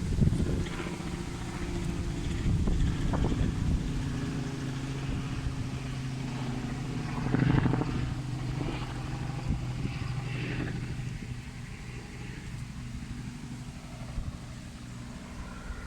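An engine running steadily, swelling louder about seven seconds in and then easing off.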